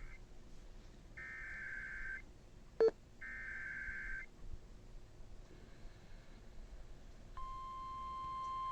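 EAS/SAME digital header: three screechy warbling data bursts, each about a second long with a second's gap between them (the first already under way as the sound begins), with a sharp click between the second and third. About seven seconds in, a steady single-pitch alert tone starts: the NOAA Weather Radio 1050 Hz warning alarm tone that announces a new warning.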